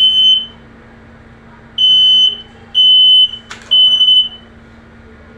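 Smoke alarm sounding its pattern of loud, high, steady beeps, each about half a second long: one beep closing a group of three, a pause, then three more beeps, with a sharp click between the last two.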